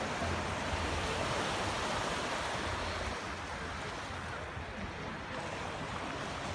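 Small waves breaking and washing onto a sandy beach, a steady rush of surf, with some wind buffeting the microphone.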